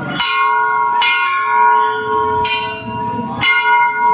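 Hindu temple bell struck four times by hand, each stroke ringing on with a clear, lingering tone into the next.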